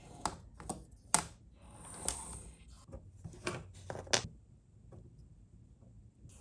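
A series of sharp hard-plastic clicks and clacks, about six of them, the loudest just over a second in, as small 3D-printed parts of a toy-sized RC truck's bucket and fork attachment are handled and clipped on. The clicking stops a little after four seconds in.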